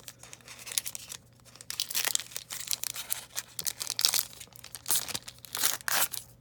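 Wrapper of a 2019 Topps Gypsy Queen three-card box loader pack being torn open and crinkled by hand, in an uneven run of crackling tears.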